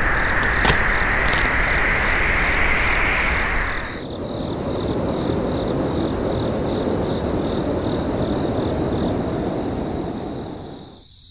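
Small DIY motor-driven water pump running, with a steady rush of water; the rush drops lower in pitch about four seconds in and fades out near the end. A few sharp clicks sound about a second in.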